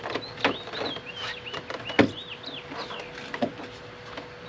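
Door panel of a VW New Beetle being pressed onto its retaining clips: a few sharp knocks and snaps, the loudest about two seconds in. Small birds chirp throughout.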